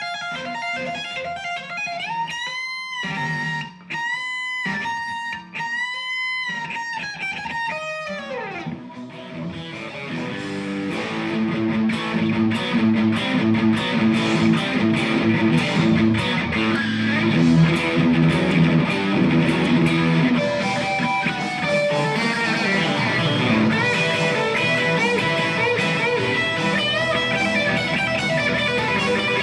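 Squier Classic Vibe '50s Stratocaster electric guitar playing a lead line: a few held notes bent upward and released, with short breaks between, then faster, denser playing from about ten seconds in.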